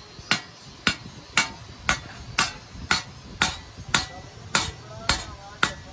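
Hand hammer striking a chisel held on a steel spade blade over an anvil, cutting along the blade's edge: a steady rhythm of about two blows a second, each with a brief metallic ring.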